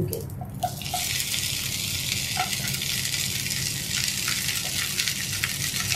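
Whole oil-coated okra pods sizzling in a hot frying pan, the sizzle starting about a second in as they go into the pan and then holding steady, with a few light taps as the pods are laid in.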